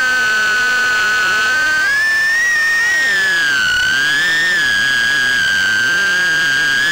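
High-pitched whine of a Happymodel Mobula 6 HD micro FPV drone's brushless motors, recorded by its own onboard camera. The pitch climbs about two seconds in, dips near four seconds, then rises slightly and holds steady as the throttle changes.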